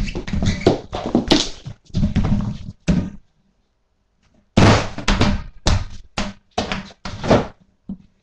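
A person bumping and tumbling around with heavy thumps and knocks. There is a run of impacts, a break of about a second and a half a little before halfway, then another run.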